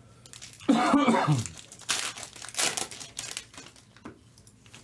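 Foil trading-card pack wrappers crinkling and cards being handled in gloved hands, in several short crinkles, with a brief voice about a second in.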